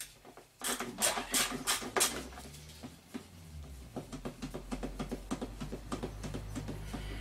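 Ratchet wrench clicking as it backs out the small screws of an oil burner's sheet-metal cover: a quick run of louder clicks, then a steady train of lighter ratchet clicks, several a second.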